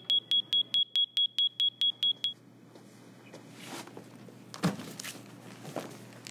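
Library security gate alarm beeping rapidly, one high tone about six times a second, set off by an item that has not been checked out; it stops a little over two seconds in. Then footsteps and a thump as a backpack is set on the counter.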